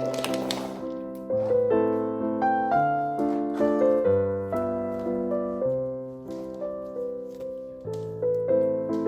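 Background piano music: a light melody of struck notes in an even rhythm over repeated bass notes, with a brief swish near the start and again at the end.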